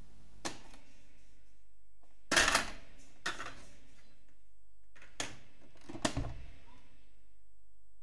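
Philips N2405 cassette recorder's piano-key transport controls and eject mechanism: a click as playback is stopped, then a louder clunk and rattle as the cassette door springs open, followed by a few smaller clicks as the cassette is handled.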